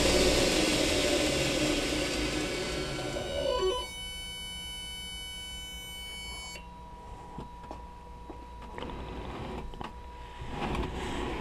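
Belt grinder with an 18-inch contact wheel, run by a 2 hp motor on an AC Tech Lenze MC1000 drive, spinning down after being stopped: its running noise fades for about four seconds and then drops away. A steady high electrical hum from the drive's DC injection braking follows for nearly three seconds and cuts off, with a few faint knocks near the end.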